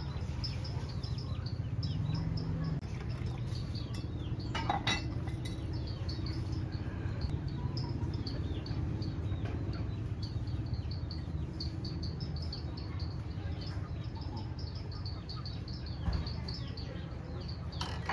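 Outdoor ambience: rapid high chirping repeated throughout over a low steady rumble, with a brief clatter about five seconds in.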